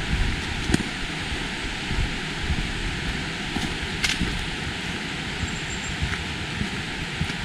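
Steady rushing outdoor hiss with a few sharp, irregular crunches and snaps, typical of walking along a leaf-strewn woodland path.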